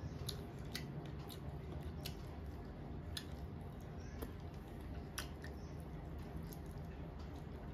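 Eating by hand: chewing, with scattered sharp wet clicks of the mouth and lips, and soft squishing as fingers mix rice and curry on a metal plate, over a steady low hum.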